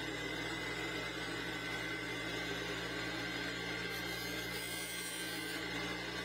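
Juiceman Jr. juicer's electric motor running at speed, spinning its plastic hub with a steady hum and whine. About four seconds in, a metal file scrapes lightly against the spinning hub for a second or two, adding a high hiss, as the nub is trimmed down to fit.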